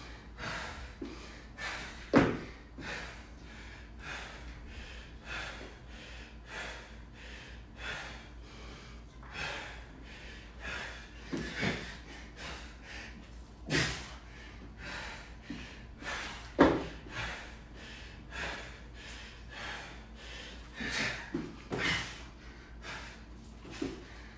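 Heavy, rapid breathing of a man working through burpees over a barbell, with a few loud thumps on the rubber gym mat as he drops down and lands.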